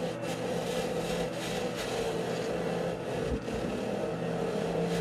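Wood lathe running with a steady motor hum while a hand-held turning tool scrapes and cuts a spinning block of pink foam, throwing off chips; the scraping hiss is densest in the first few seconds.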